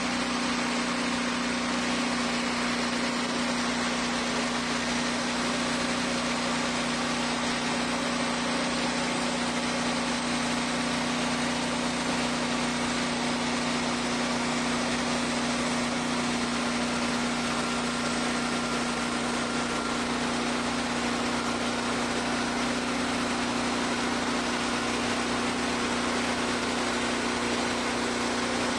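Wood-Mizer portable band sawmill running steadily, its engine holding an even note.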